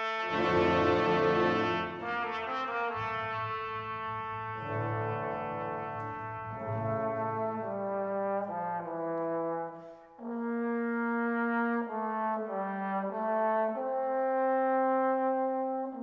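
A short brass fanfare: brass instruments playing a slow melody of held notes that step from pitch to pitch, opening with a loud crash in the first couple of seconds and settling on a long held note near the end.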